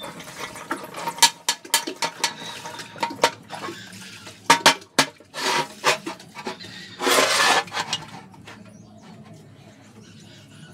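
Steel parts of a homemade sheet-metal roller knocking and clinking as they are handled and set down on a steel workbench. Two longer rasps, about five and seven seconds in, among the knocks. It quietens for the last few seconds.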